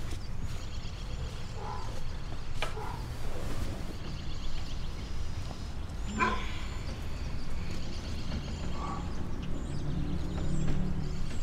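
Background ambience of distant animal calls, with a sharper, louder call about six seconds in, over a low steady rumble.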